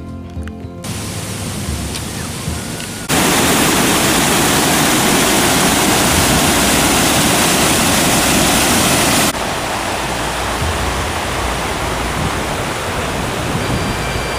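A waterfall rushing in a steady, loud roar of water. A few seconds in it becomes much louder, then a few seconds later drops back to a quieter steady rush.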